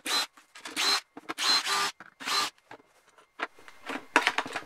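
Cordless screwdriver whirring in four short bursts as it backs out the screws of an electric planer's plastic housing. Then come short clicks and knocks as the housing parts are handled.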